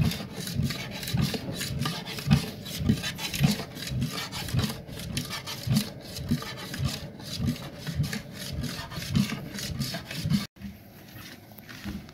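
Homemade flat-steel scraper paddle scraping and sloshing around the inside of a steel kettle as thick scrapple mush is stirred. About two rasping strokes a second go round the kettle wall to keep the scrapple from sticking. The sound turns softer near the end.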